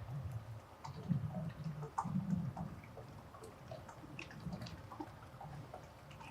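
Faint outdoor field ambience: uneven low rumbling, loudest about one to two and a half seconds in, with scattered soft clicks and brief faint chirps.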